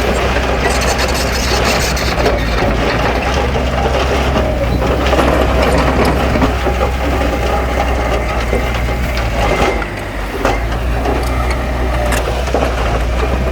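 Heavy diesel earthmoving machinery running steadily under load, with crunching and clanking of stone and mud over the engine note. The sound drops briefly about ten seconds in.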